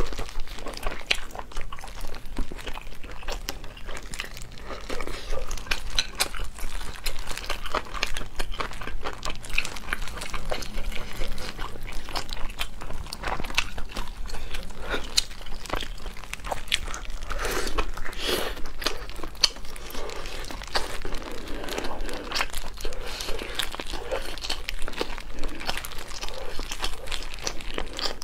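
Close-miked eating of braised pork: wet chewing and lip smacks with a dense run of small sticky clicks, and plastic gloves crinkling as the meat is pulled apart.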